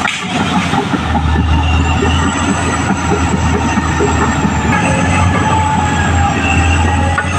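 Caterpillar D6R XL crawler dozer working, its diesel engine running steadily under the high squeal and rapid clatter of its steel tracks.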